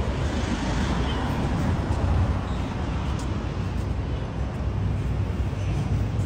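City street ambience: steady traffic noise with a low rumble.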